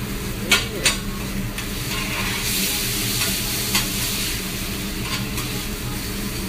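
Food sizzling on a hibachi flat-top griddle while metal spatulas work it. Sharp clacks of spatula on the steel come twice about half a second in and once near the middle, and the sizzle swells from about two seconds in to past the middle.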